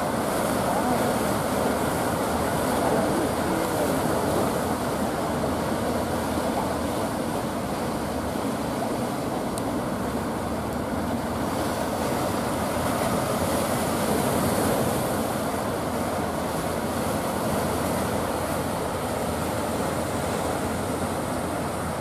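Steady rumble of a wooden fishing boat's engine running under way, mixed with the wash of surf on the estuary bar.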